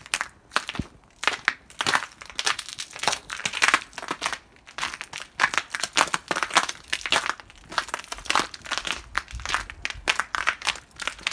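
Footsteps crunching in trodden snow at a steady walking pace, each step a short crisp crunch.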